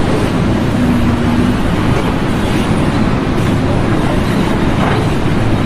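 Loud, steady mechanical rumble, like a large vehicle or machine running, with no clear rhythm.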